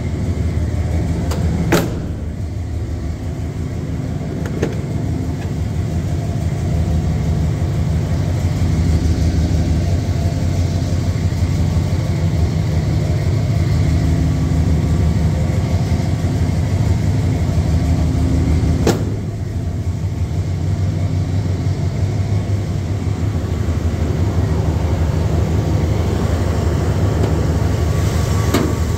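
Truck engine idling steadily, with two sharp knocks, one about two seconds in and one near the middle.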